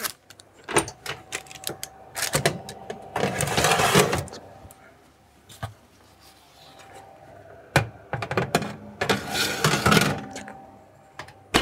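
Metal baking trays of bread rolls slid onto the rails of an open electric oven: several sharp clacks of metal on metal and two longer scraping slides, one about three seconds in and one around nine seconds in.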